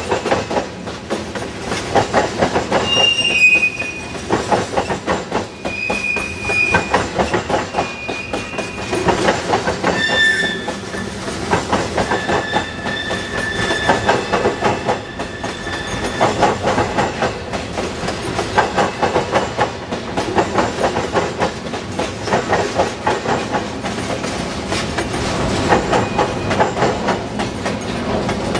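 Freight train cars rolling past close by: steel wheels clacking in a steady rhythm over the rails. Thin high-pitched wheel squeals come and go in the first half.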